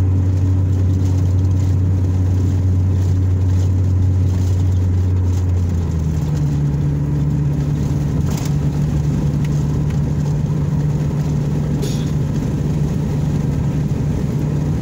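Vehicle engine and tyre noise heard from inside the cabin while driving, a steady low drone. About six seconds in, the engine's pitch steps up and holds at the higher note.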